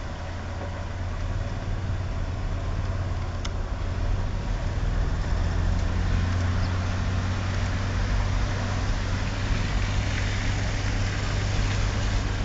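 Steady low drone of a motor vehicle's engine with an even rushing hiss over it, growing a little louder during the first half.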